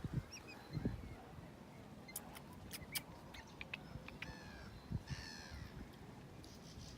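A bird giving a short series of harsh calls about four to five seconds in, faint against outdoor background noise, with a few sharp clicks just before.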